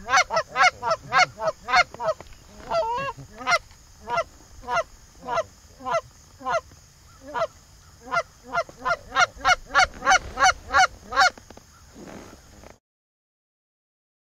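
Canada goose honking: a long series of loud honks, several a second at first, more widely spaced in the middle, then quick again, with a short warbling stretch about three seconds in. The honking stops shortly before the end, and the sound then cuts to dead silence.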